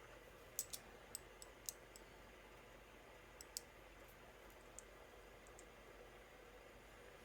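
A few faint, light clicks of small metal fidget spinners being handled, scattered over the first few seconds, against near silence.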